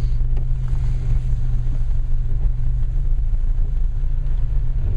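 Steady low rumble of a car's engine and road noise, heard from inside the cabin of the moving car.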